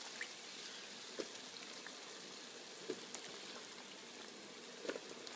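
Faint, steady sizzle of potato and tomato masala cooking in oil in a pressure cooker, with a few small pops.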